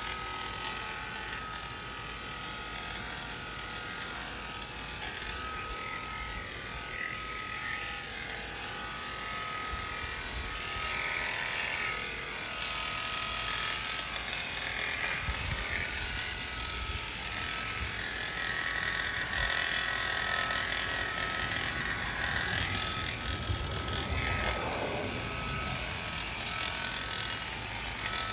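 Premier One electric sheep-shearing clippers running steadily with a constant high hum as they shear a ram's wool.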